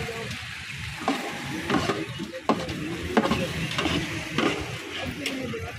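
A metal plate scraping and scooping cooked rice out of a large metal cooking pot, with a scrape or clink of metal on metal every second or so over the rustle of the rice.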